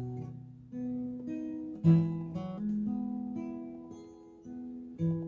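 Capoed acoustic guitar played fingerstyle in an instrumental break of a slow folk song: single picked melody notes over bass notes, a new note every half second to second, the strongest pluck about two seconds in.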